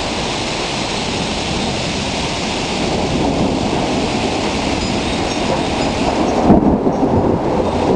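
Heavy thunderstorm rain falling steadily, a dense hiss that grows a little louder about three seconds in. A louder low rumble swells about six and a half seconds in.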